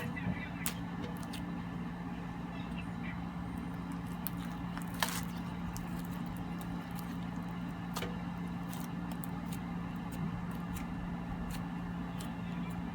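Crunchy slime with foam beads being played with: scattered crisp clicks and crackles, a few seconds apart, over a steady low hum.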